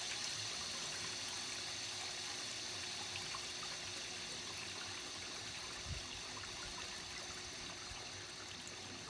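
Water draining out of the open drain plug at the bottom of a pool cartridge filter tank onto the concrete pad, a steady trickle that slowly grows fainter as the tank empties. A soft knock about six seconds in.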